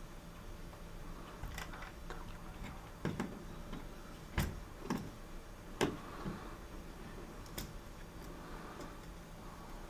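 Irregular sharp clicks and light knocks, about half a dozen, the loudest about four and a half and six seconds in, over a faint steady hum.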